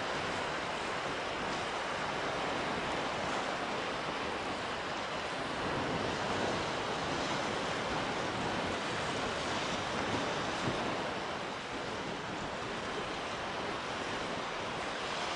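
Steady rushing noise of strong wind and choppy water, with no distinct engine or horn.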